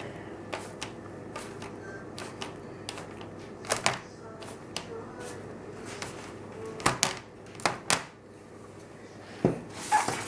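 A cloth-covered cup pressing dough balls flat on a metal baking sheet: a run of light, irregular taps and knocks on the tray, with a few sharper knocks in the second half.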